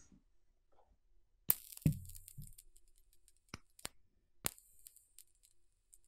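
Electric arc lighter switched on twice, each time with a sharp click followed by the faint, high-pitched hiss of its electric arc: once about a second and a half in, lasting about a second, and again about four and a half seconds in. A few light clicks fall in between.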